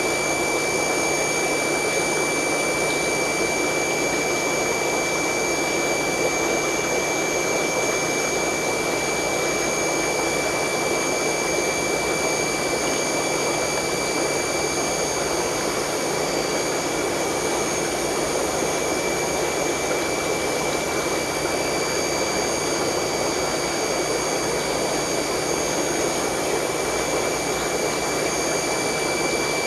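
Steady rushing hum of running aquarium equipment, unchanging throughout, with a few thin high-pitched whines held steady over it.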